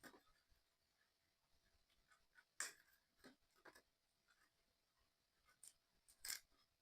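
Faint, scattered clicks and light taps of small puzzle-kit parts being handled and pressed together, the sharpest two about two and a half seconds in and near the end.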